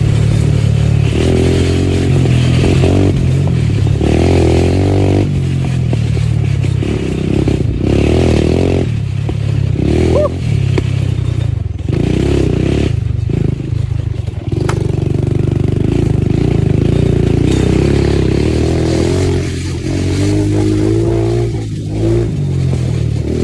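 ATV engine running under way through its muffler, its note rising and falling with the throttle and easing off briefly a few times.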